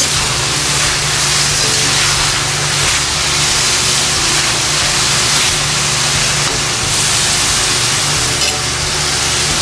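Grasshoppers deep-frying in hot oil in a wok, a loud, steady sizzle as they near crispness, with a low steady hum underneath.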